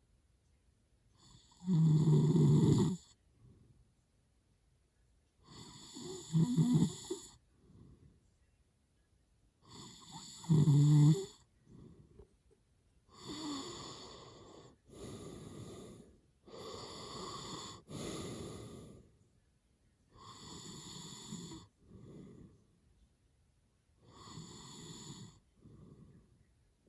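A man snoring hard in his sleep: three loud snores about four seconds apart, followed by a run of quieter snoring breaths.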